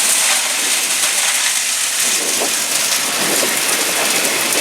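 Old-time corn shelling machinery running, with a steady, even rushing rattle of shelled corn.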